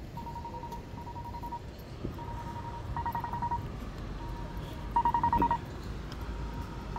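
Electronic beeper sounding repeated beeps at one steady mid pitch, a little over one beep a second. About three and five seconds in, two beeps come louder and buzzier, pulsing rapidly. A low rumble of traffic lies underneath.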